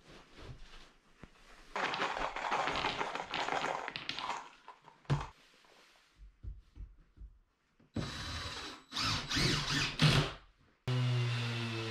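Scraping and knocking as the OSB worktop is handled. Then, in the second half, a cordless impact driver runs in short bursts, driving screws into the OSB board. Background music comes in near the end.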